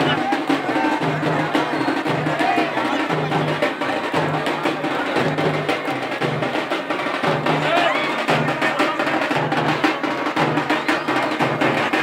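Drums beating a fast, driving rhythm, with a deep beat about twice a second and quicker strikes between, over the noise of a large crowd.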